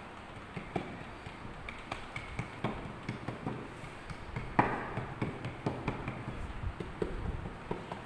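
Moulding sand being packed by hand into a metal moulding flask: irregular soft taps and pats from palms and fingers pressing the sand down, a few with a brief ring.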